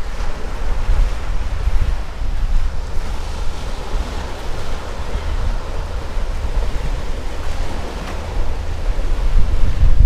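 Small sea waves breaking and washing up a pebble-and-sand shore, with wind buffeting the microphone as a gusting low rumble.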